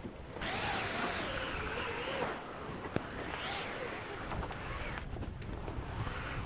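A foresail being lowered: the sailcloth rustles and flaps as it comes down, loudest in the first couple of seconds, with a sharp click about three seconds in. Wind on the microphone and waves sound beneath it.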